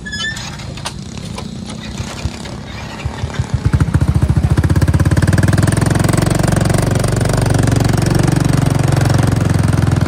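Motorbike engine, low and uneven at first, then picking up to a loud, rapid, steady beat about four seconds in as the bike pulls away, its pitch rising a little as it gathers speed.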